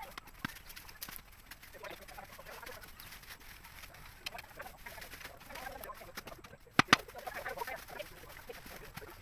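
Birds calling in short scattered notes, with two sharp clicks in quick succession about seven seconds in.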